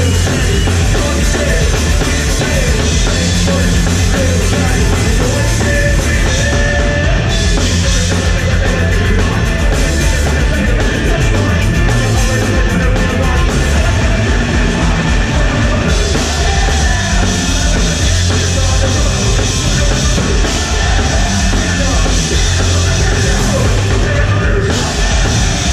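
Live punk rock band playing loud and steady: electric guitars, bass guitar and drum kit in full swing.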